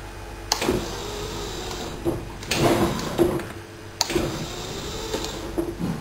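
Battery-powered electric drive motors of a home-built remote-control lawn mower whining as they drive its wheels in three short runs, each starting with a sharp click.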